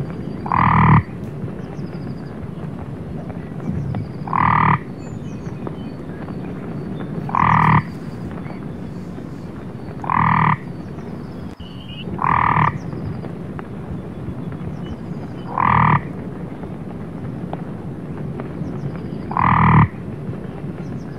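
Common frog croaking: seven short croaks, each about half a second, coming every two to four seconds.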